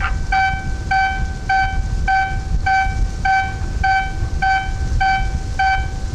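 A short beep of one steady pitch repeating about every 0.6 s, like a warning beeper, over a steady low rumble.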